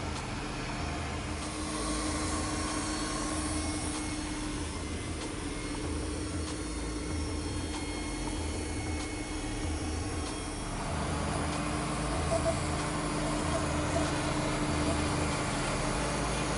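A compact tractor's diesel engine running steadily. About ten seconds in, the sound changes to a portable band sawmill's engine running with its blade cutting through a Douglas fir log.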